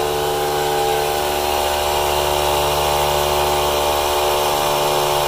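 Several battery-powered tire inflators and an 18V Ryobi cordless air compressor running at the same time, a steady motor-and-pump drone made of several overlapping tones. The compressor is filling its tank.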